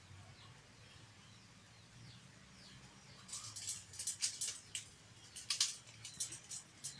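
A dog's claws scrabbling and clicking on the wooden rails and wire of a fence as it climbs, a quick irregular run of scratches and rattles that starts about three seconds in.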